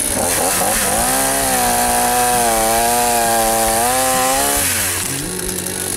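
Chainsaw revving up about a second in and held at high speed while cutting through a tree branch, its pitch wavering under load, then dropping back to idle near the end.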